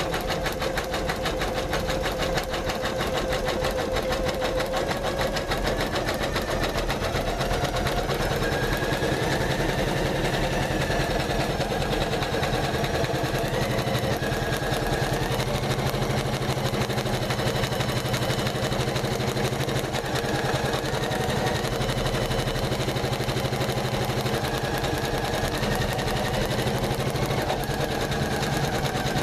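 Janome MC500E computerized embroidery machine stitching steadily, its needle running in a rapid, even rhythm.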